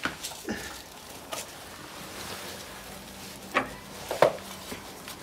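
Handling noise: a few light knocks and clicks scattered among faint rustling, as things are moved about by hand.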